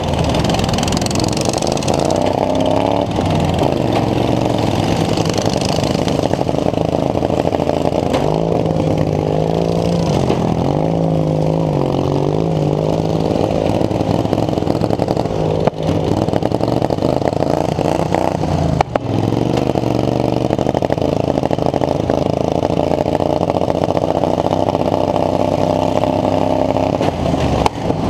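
Racing lawn mower's engine running hard, its pitch rising and falling with the throttle. Two brief drops in the sound come about halfway through.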